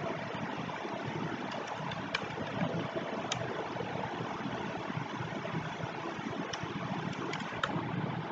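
Steady background hiss with scattered soft clicks of computer-keyboard typing.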